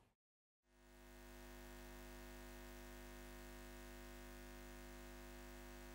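Near silence, then a faint steady hum that fades in about a second in and holds.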